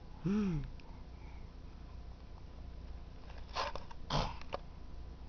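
A short rising-then-falling voiced "ooh" just after the start, then two short breathy sniffs or puffs about three and a half and four seconds in.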